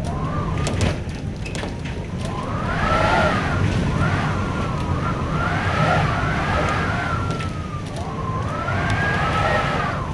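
Hurricane-force wind howling and whistling around a shuttered sliding glass door: a whistling tone that swells and rises and falls every few seconds over a steady low rumble, with scattered sharp clicks and ticks.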